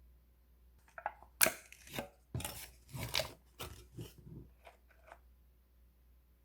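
Crackling and crunching from a packaged hazelnut dipping bread stick snack being handled: a quick run of sharp crackles over about four seconds, loudest near the start.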